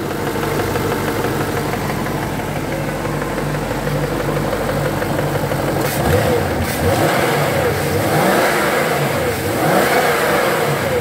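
Jaguar 4.0-litre V8 of a 1998 XK8 running with the bonnet up, steady at first, then revved up and down a few times from about six seconds in. A light tick is audible, which the auctioneer takes for the hydraulic tappets.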